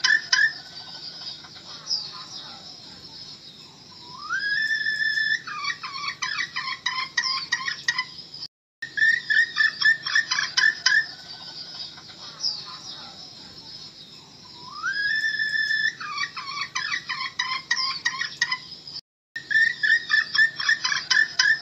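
Red junglefowl hen calling, used as a decoy lure: a fast run of clucks, then a rising note held briefly and another quick burst of clucks, with higher chirps above. The same stretch repeats as a loop, about every ten seconds, with a brief silent break between repeats.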